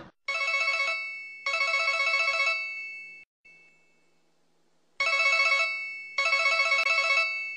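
Telephone ringtone ringing in a double-ring pattern: two rings, a pause, then two more rings. Each ring is a warbling electronic tone about a second long, and the second ring of each pair fades away.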